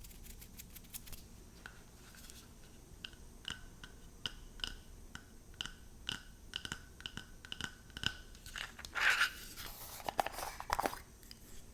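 A long series of crisp taps and clicks on hard makeup items, many with a short ringing note, broken about nine seconds in by a louder rustling swish and a few heavier knocks.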